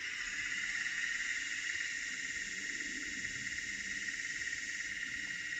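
N gauge Class 85 electric locomotive model's DCC sound decoder (ESU V5 nano through a sugar cube speaker) playing a steady, high-pitched electrical buzz while the loco stands still.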